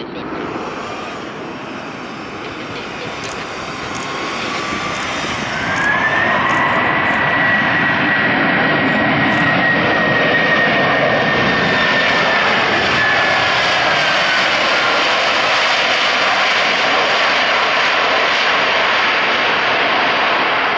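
Airbus A330-200 jet engines on the landing rollout just after touchdown. The roar swells about six seconds in as the engines spool up, most likely for reverse thrust, with a high whine that climbs, holds, and eases off past the middle while the rumble carries on.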